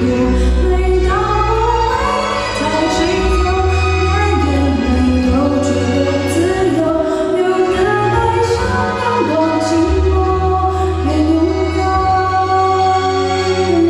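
A woman singing a slow Mandarin pop ballad over backing music with sustained bass notes.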